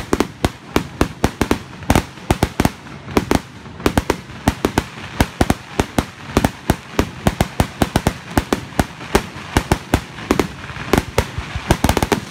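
Fireworks bursting in quick succession: a dense, irregular run of sharp bangs and pops, several a second.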